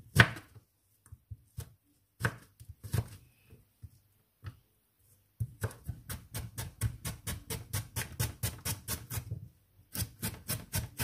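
Kitchen knife cutting raw mango and carrot into thin strips on a cutting board. A few scattered cuts come first, then from about halfway through a quick, even run of chops, about five a second, with a short break near the end.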